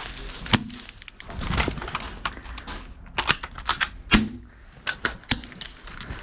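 Airsoft gunfire: irregular single sharp clacks, several in quick succession a little past halfway, the loudest shortly after.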